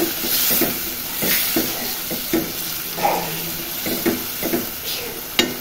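Silicone spatula stirring and scraping through a frying curry of spices, tomatoes and flat beans in an aluminium pot, with a steady sizzle under the strokes. The strokes come unevenly, two or three a second, and there is one sharp knock near the end.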